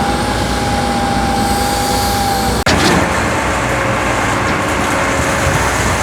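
Heavy truck engine running steadily, with an abrupt break about two and a half seconds in.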